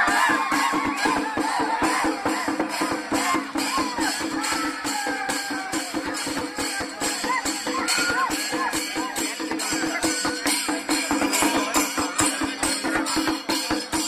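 Singarimelam ensemble of chenda drums and ilathalam cymbals playing a fast, driving, even beat. Shouts from the crowd come over it at the start and again around the middle.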